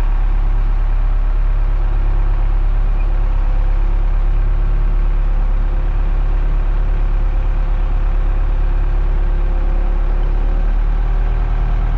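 Cat wheel loader's diesel engine running steadily, heard from inside the cab while it holds a heavy barge on its forks.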